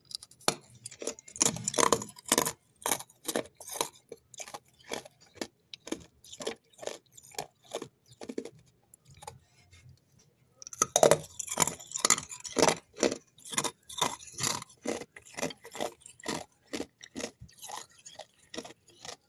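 Freezer frost and ice being chewed: a steady run of crisp crunches, two or three a second, with a denser, louder flurry of crunching about eleven seconds in.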